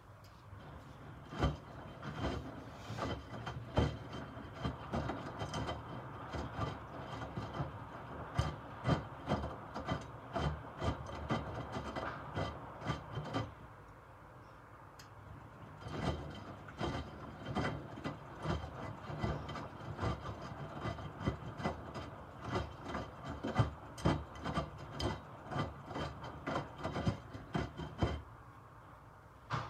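Miele W2573 front-loading washing machine tumbling a load of wet microfibre cloths in its prewash: the drum turning, the cloths sloshing and dropping with irregular soft thuds and clicks. Near the middle the tumbling stops for a couple of seconds, then the drum turns again.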